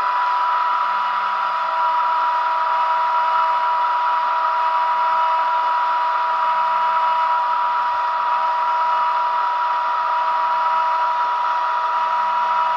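ESU LokSound 5 sound decoder in an H0 model of an ÖBB 4020 electric S-Bahn train, playing the train's start-up sound through the model's small loudspeaker. It is a steady electrical whine and hum, and a second, lower tone joins about a second and a half in.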